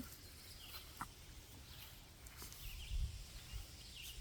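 Faint outdoor ambience: small birds chirping briefly a few times in the distance, with a single light click about a second in and a low rumble about three seconds in.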